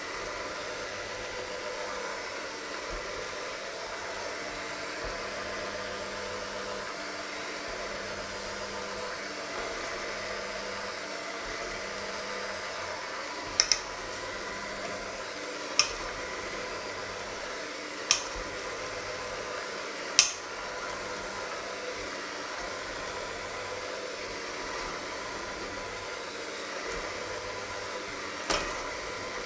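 Electric hand mixer running steadily, its beaters whisking a creamy batter in a stainless steel bowl. Several sharp clicks in the second half as the beaters knock against the side of the bowl.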